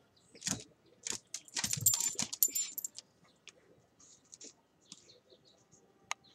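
Two small dogs, one a Chihuahua, scuffling in play on a hard floor: collar tags jingle and claws click and scrape in a busy flurry over the first three seconds, then only scattered light claw clicks.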